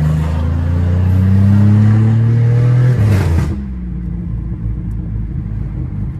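Pontiac Grand Prix GT's V6 accelerating hard, heard from inside the cabin, its pitch climbing steadily. About three seconds in, a short burst of rasping noise comes as it lets off, and the engine drops back to a lower, quieter steady drone with road rumble.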